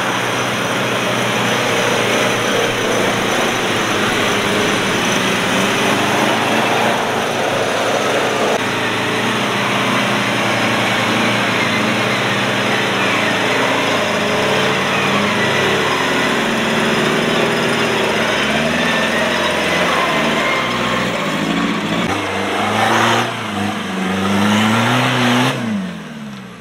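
Engines of extreme 4x4 trial buggies revving hard under load on a steep dirt climb, with a steady noisy wash throughout. In the second half the engine pitch rises and falls repeatedly. Near the end the revs climb high, then drop away and the sound falls off.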